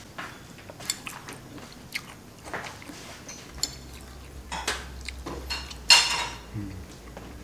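Eating sounds: a metal spoon clicking and scraping in a ceramic bowl, with chewing, and one louder noisy sound about six seconds in.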